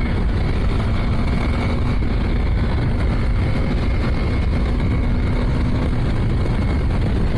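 Motorcycle riding at a steady speed: an even rush of wind noise over the engine's steady drone, with no change in speed or gear.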